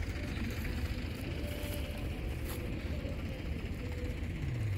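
Steady low engine rumble of the silage-making machine running at an even pace.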